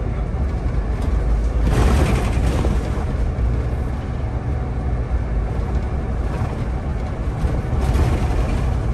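Solaris Urbino 18 articulated city bus running, heard on board: a steady low engine and road rumble, with two short, louder bursts of noise about two seconds in and near the end.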